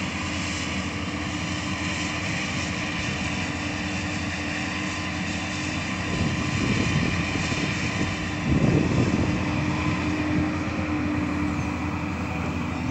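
Doosan crawler excavator's diesel engine running steadily with a constant hum, swelling louder twice, about six seconds in and again at about eight and a half seconds, as the machine works its boom and bucket.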